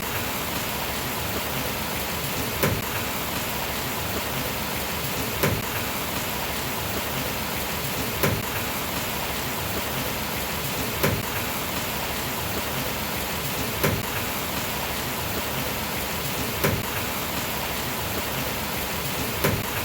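Steady, heavy rain hiss, with a short sharp tap that recurs evenly about every three seconds.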